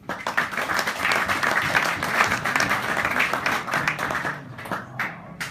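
A small crowd applauding: dense clapping for about four and a half seconds that thins out to a few last claps.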